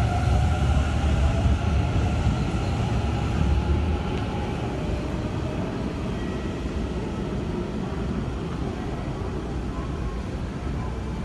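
Hanshin 1000 series train pulling out, its Mitsubishi two-level IGBT VVVF inverter whining over heavy wheel and motor rumble. The whine and rumble fade out about four seconds in, leaving a quieter, steady station hum.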